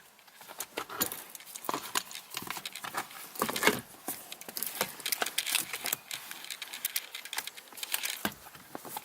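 A plastic trim piece around the gear shifter being lifted and bent up by hand: a run of quick clicks, creaks and rattles of hard plastic.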